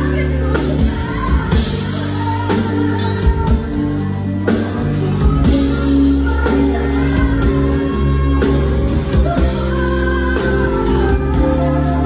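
A woman singing into a handheld microphone, amplified over instrumental accompaniment with long held low notes.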